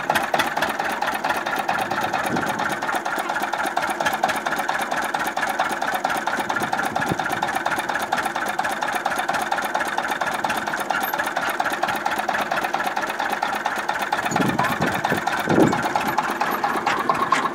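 Hofherr Mia tractor engine running steadily at idle, with a fast, even beat.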